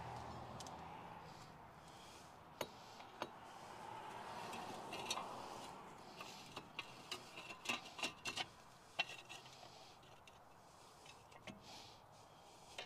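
Scattered light metallic clicks and taps, bunched together about seven to nine seconds in, as a front wheel hub bearing assembly is handled and worked onto a Jeep Cherokee XJ's steering knuckle.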